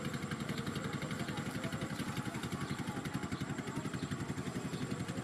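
A small engine running steadily with a fast, even throb.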